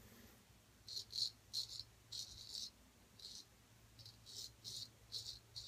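Gold Dollar 800 straight razor scraping through lathered stubble on the chin and neck: short, crisp rasping strokes, about two a second, starting about a second in.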